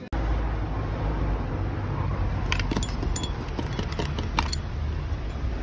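A few sharp raps and clinks of keys against a white panelled front door, over a steady low rumble.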